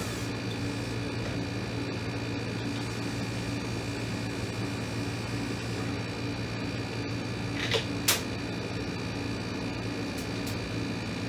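1984 General Electric Quietaire 8,300 BTU window air conditioner running steadily, a constant hum with a few fixed tones. Two short sharp clicks come close together about three-quarters of the way through.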